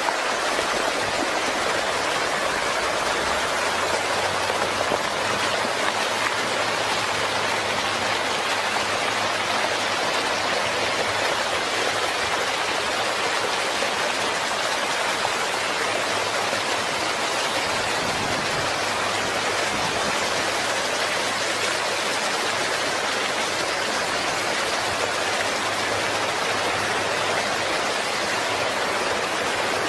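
Muddy flash-flood water rushing steadily across a road, a constant even wash of water noise.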